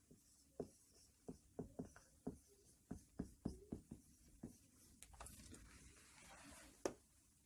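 Faint marker pen tapping and scratching on a whiteboard: a run of short, irregular ticks, with one sharper click near the end.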